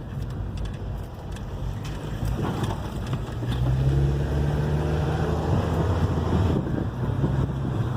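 2011 Hyundai i30's 2.0 petrol engine and tyres while driving, with road and wind noise; the engine note comes up and grows louder about three seconds in, then holds steady.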